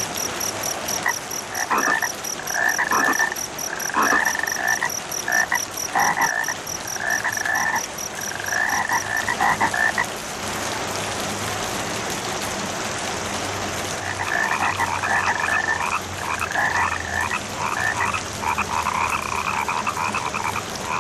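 A chorus of frogs croaking in repeated short calls, which stop about halfway through and start again, denser, a few seconds later. Over the first half a cricket chirps in a fast, high pulsing trill. A steady hiss of rain lies under it all.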